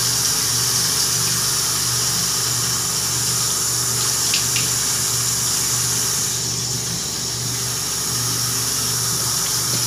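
Tap water running steadily into a bathroom sink, with a low steady hum underneath.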